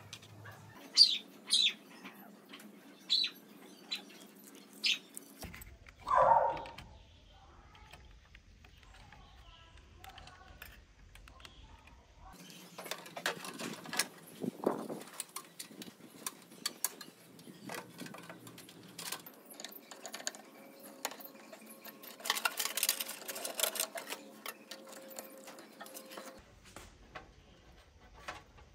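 Computer parts being handled and fitted into a steel PC tower case: scattered clicks, taps and rattles of metal and plastic. There is a brief louder sound about six seconds in, and a busier stretch of clattering in the middle.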